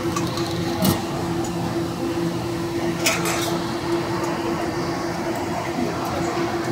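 A machine running with a steady low hum, over constant background bustle, with two sharp clacks about a second in and about three seconds in.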